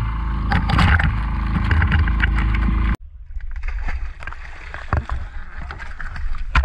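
Seawater splashing and churning against the side of a wooden outrigger boat, under a heavy low rumble that cuts off abruptly about three seconds in; quieter, irregular splashes follow.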